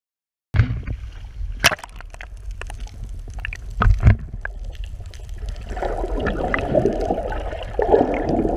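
Water sloshing and gurgling around an underwater camera, with scattered sharp clicks and knocks, turning into a louder bubbling rush about six seconds in. It starts after half a second of dead silence.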